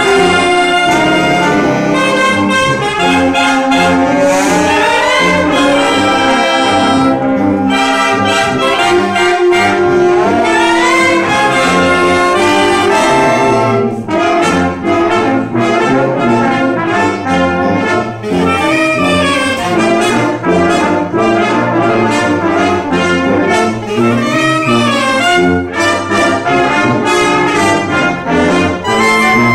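Wind band of clarinets, saxophones and brass including tuba playing together. Rising runs sweep up twice in the first half, and from about halfway the playing turns to short, detached notes.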